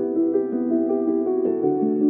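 Background music: a soft keyboard or piano melody with held notes.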